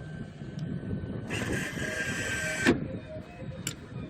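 Claw machine's gantry motor whirring for about a second and a half as the claw moves, stopping abruptly with a clunk, over a low rumble of wind on the microphone.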